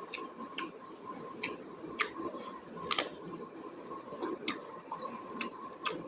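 Someone eating buffalo innards curry close to the microphone: irregular wet clicks and smacks of chewing, about two a second, the loudest about three seconds in, over a faint steady tone.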